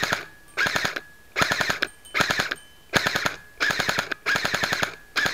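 G&G Combat Machine Raider airsoft M4, an electric gearbox gun running on a LiPo battery, firing on full auto in seven short bursts of about half a second each. Each burst is a fast, even string of shots with brief pauses between bursts.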